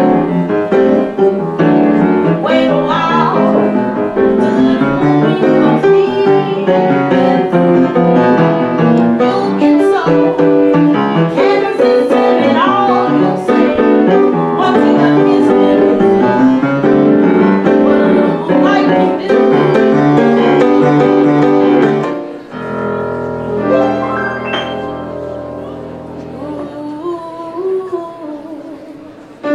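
Woman singing with piano accompaniment. About three-quarters of the way through, the music settles on a held chord that slowly fades away.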